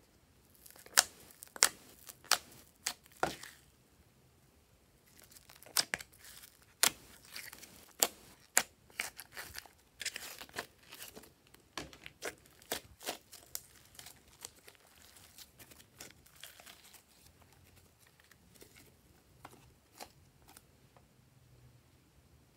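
Glossy slime being peeled out of a plastic tray and dropped into a bowl: a run of sharp sticky pops and crackles. They come thickest in the first half, with a short pause a few seconds in, and grow sparser and softer toward the end.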